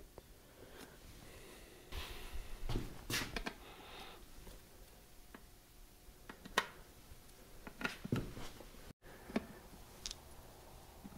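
Scattered faint clicks and light knocks of small metal parts being handled: washers and fasteners picked up and set onto an engine's valve cover.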